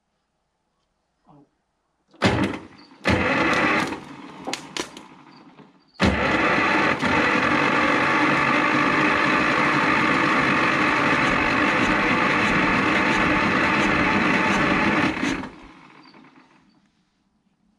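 Zetor 25A's two-cylinder diesel engine being cranked by its electric starter with the fuel bleed screws loosened: two short bursts of cranking about two seconds in, then about nine seconds of steady, even cranking that stops abruptly. The engine does not fire.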